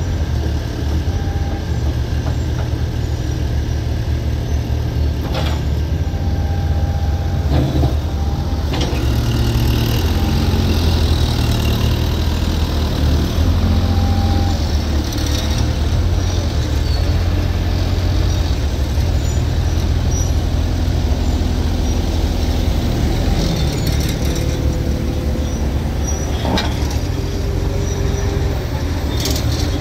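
Caterpillar 305.5E2 mini excavator's diesel engine running steadily with a low rumble, with a few short knocks along the way.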